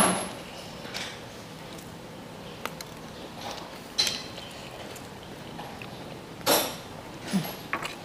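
Close-up eating sounds of a person biting grilled chicken off a skewer and chewing. There is a sharp bite right at the start, another loud one about six and a half seconds in, and small clicks and smacks in between.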